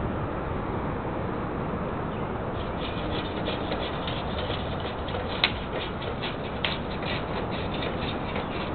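Steady outdoor background noise with a small bird chirping rapidly and repeatedly. Two sharp clicks come about a second apart midway through.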